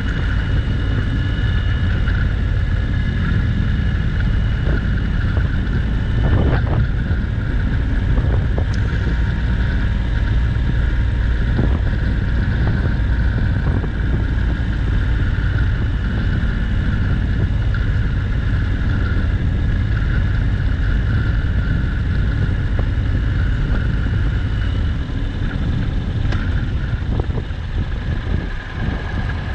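Wind buffeting the microphone of a moving Honda NC750X motorcycle, with its parallel-twin engine running steadily beneath. The rumble eases a little near the end.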